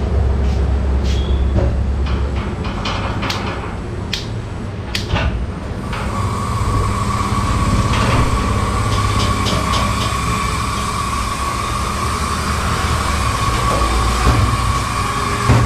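Steady mechanical running noise from a gas-fired vertical shawarma rotisserie with its infrared burners lit, a low hum under a broad rush. There are scattered clicks in the first few seconds, and a steady thin whine joins about six seconds in.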